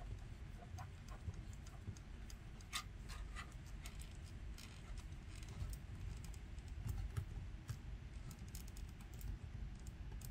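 Light, irregular clicks and ticks of plastic twist-on aluminum-to-copper wire connectors (Marrette 63) being handled and twisted onto wire splices, with a cluster of sharper clicks about three seconds in.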